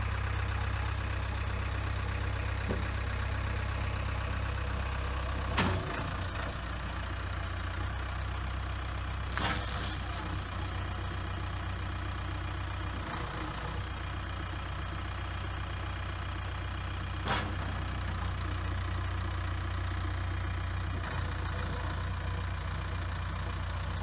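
JCB 3DX backhoe loader's 4.8-litre four-cylinder ecoMAX diesel engine running steadily near idle while the front loader arm is raised, with three brief knocks spread through.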